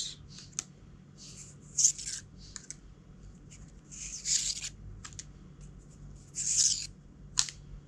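Cardboard game backdrop cards sliding and rubbing against one another as a stack is leafed through by hand: three main swishes with a few light ticks between them.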